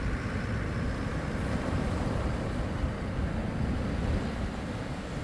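Wind buffeting the microphone in a steady low rumble, over the wash of surf breaking on the beach.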